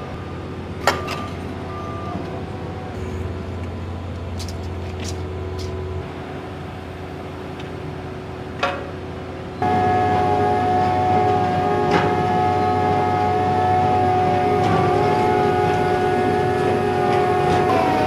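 A rotary drilling rig runs with a steady mechanical whine, broken by a few sharp metallic knocks. A little past halfway the sound suddenly becomes louder, with a stronger, higher whine.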